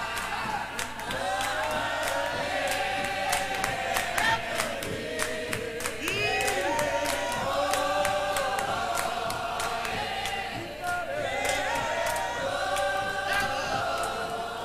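Church hymn choir singing unaccompanied, many voices together, with hands clapping along. The claps are thickest in the first half.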